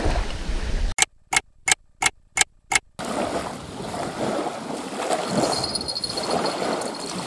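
Wind and small waves lapping on the lake shore. About a second in, the sound drops out for two seconds, with six sharp clicks. From about five seconds, a faint, rapid high-pitched beeping from a carp bite alarm signals a fish pulling on the line.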